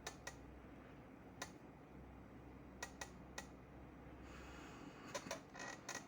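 Quiet scattered clicks and taps, about half a dozen spread out, with a short hissing rustle in the last two seconds.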